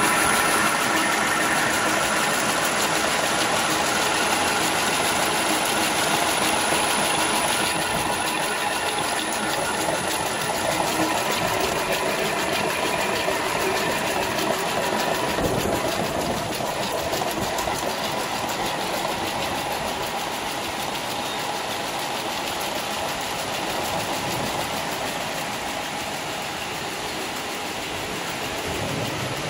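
32-carrier cord braiding machine running, its carriers circling and interlacing the yarns with a steady mechanical rattle.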